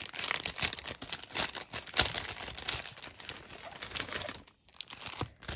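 Crinkling and rustling of packaging and paper as stationery items are handled, with irregular crackles, a sharper snap about two seconds in and a brief lull near the end.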